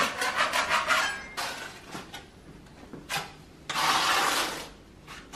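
A metal scraper scraping over a tile: a quick run of short scrapes, then a few single strokes, the longest about four seconds in.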